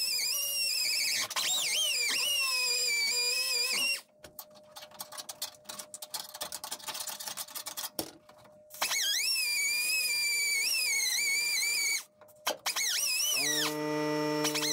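Angle grinder grinding sheet-metal patch panel in runs of a few seconds, its high whine dipping and rising as it bites the steel. It stops with faint clicks between runs. A lower steady hum comes in near the end.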